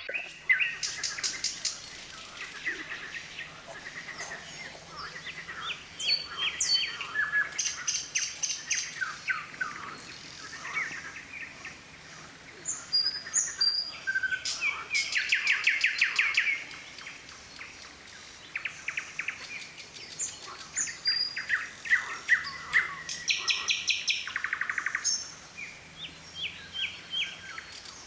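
Several songbirds singing together, a busy mix of varied chirps, short whistled sweeps and fast trills, louder in spells.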